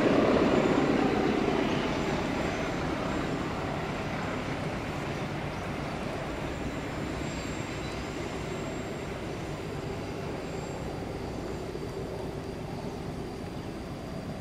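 A passenger train's coaches rumbling over the rails as the train pulls away round a curve. The rumble fades over the first few seconds and then carries on as a quieter, steady rumble.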